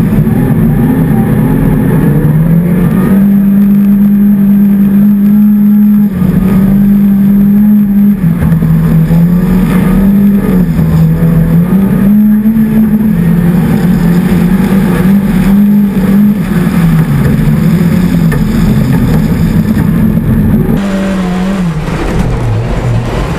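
Mitsubishi Lancer rally car's turbocharged four-cylinder engine running hard at high revs, its note holding level, dropping and climbing again with gear changes and throttle lifts. About 21 seconds in it cuts to a lower, wavering engine note heard inside a car cabin.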